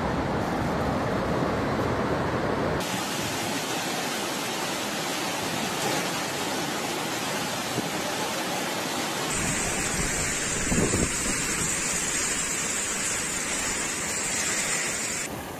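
Floodwater rushing through streets, a steady rushing noise that changes abruptly about three seconds in and again about nine seconds in. The last part is a storm of driving rain and wind.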